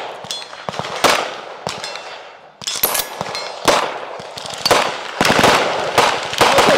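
Gunshots on an outdoor shooting range: several separate shots, irregularly spaced about a second apart, each with a short echo.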